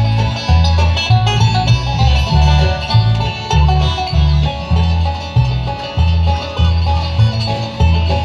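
Bluegrass band playing an instrumental passage, banjo and guitar picking over a steady, evenly pulsing bass line.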